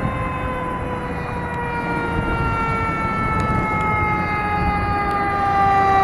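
Fire engine approaching with its siren sounding: one long wail gliding slowly down in pitch over the low rumble of the truck, growing louder as it nears.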